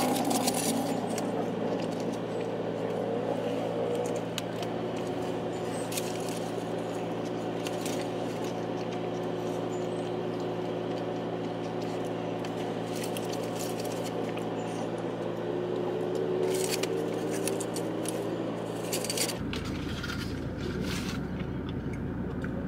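Steady low room hum with scattered light clicks and scrapes of a meal being eaten. The hum changes abruptly about three seconds before the end.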